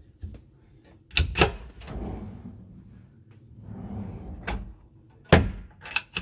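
Storage cupboards and drawers in a camper's furniture being opened and shut: a series of sharp knocks and clicks, with two longer sliding sounds between them.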